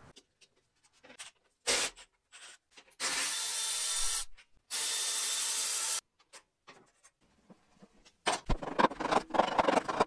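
Hand-tool and metal-part work on a motorcycle's rear wheel and axle: scattered clicks and clinks, two steady noisy bursts of about a second and a half each near the middle, and a stretch of clattering near the end.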